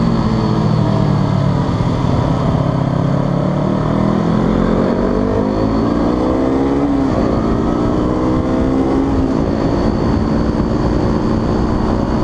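A KTM RC200's single-cylinder four-stroke engine, on its stock exhaust, running at road speed over wind and road noise. The engine pitch climbs steadily from about four seconds in and drops sharply near seven seconds, as at a gear change. The uploader likens this stock exhaust's sound to a sewing machine.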